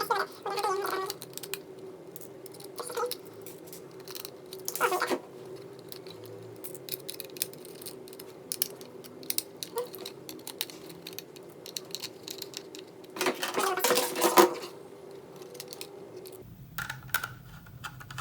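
Small metallic clicks and taps of a screwdriver and tiny screws as an SSD is screwed into a laptop's drive bracket. There are a couple of louder bursts of handling, and a steady low hum runs underneath.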